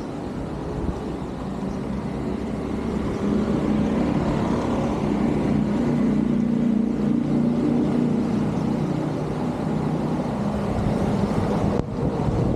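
A motor engine running steadily over a rushing noise. It grows louder about a third of the way in and eases off toward the end, and the sound briefly cuts out just before the end.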